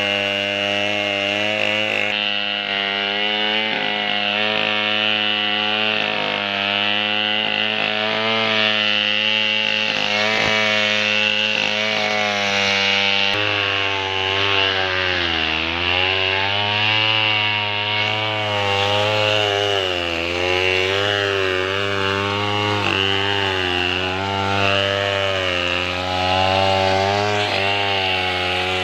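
A chainsaw engine running continuously while cutting wood. Its pitch wavers as the chain works through the cut, sagging under load about halfway through and then picking up again.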